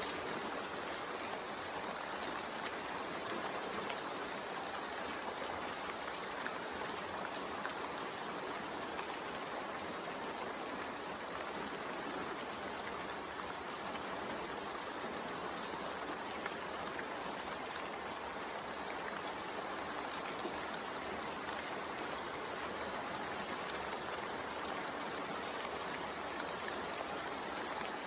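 Steady rain-sound soundtrack: a continuous, even hiss of falling rain with no breaks.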